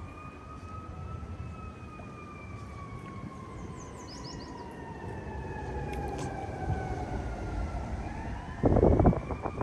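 A faint emergency-vehicle siren wailing: one slow rise and a long, slow fall in pitch, starting to rise again near the end. A short, loud burst of noise comes about nine seconds in.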